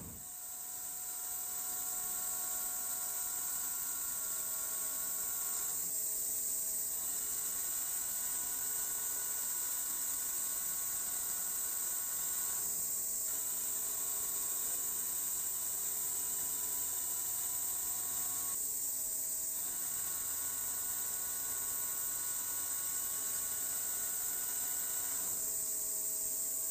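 Dijet QM MAX G2 high-feed face mill with seven double-sided inserts cutting 316L stainless steel on a vertical machining centre at 760 rpm: a steady cutting whine under a high hiss. The whine breaks off briefly four times, about every six and a half seconds, which fits the cutter running off the end of the block between passes.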